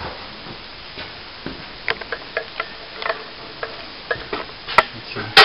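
Light, irregular clicks and taps, a few a second at times, with one sharper click near the end.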